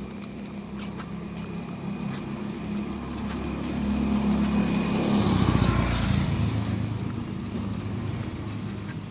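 A motor vehicle drives past on a wet road. Its engine and tyre hiss grow louder to a peak about five to six seconds in, then fade, and the engine note drops as it passes. Rain patters throughout.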